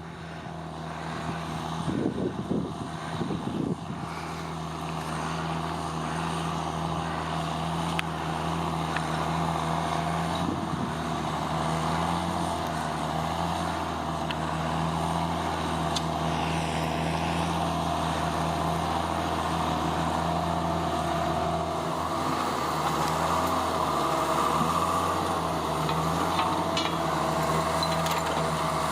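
John Deere tractor's diesel engine running steadily under load while pulling a three-furrow plough, gradually growing louder as it comes closer.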